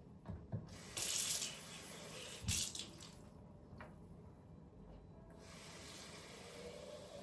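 Water running from a tap, first in two short spurts and then as a steadier flow, with a few small knocks and a faint rising tone near the end.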